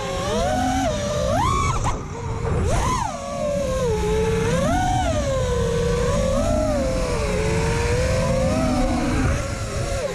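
FPV quadcopter's brushless motors and propellers whining, the pitch swooping up and down with the throttle, over a low rush of wind and prop wash on the onboard camera's microphone. The sound dips briefly twice, about two and three seconds in.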